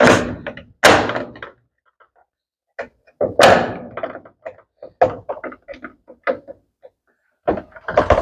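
Hand tools knocking and clattering against a washing machine's cabinet as a stuck plastic retaining clip is forced out: a few loud knocks, the strongest right at the start, about a second in and about three and a half seconds in, with many smaller clicks and taps between.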